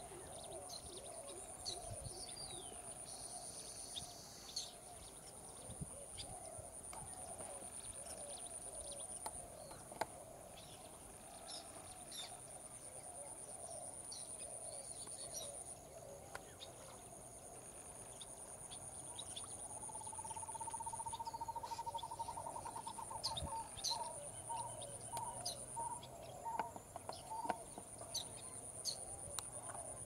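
Natural outdoor ambience of small birds chirping over a steady high insect buzz. About two-thirds of the way through, one bird gives a short rising trill followed by a run of repeated single notes.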